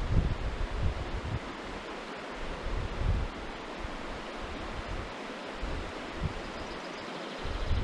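Shallow river water rushing over stones, a steady hiss, with irregular gusts of wind buffeting the microphone.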